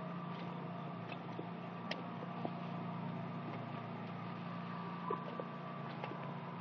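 A steady machine hum, like an engine or motor running without change, with a few faint clicks over it.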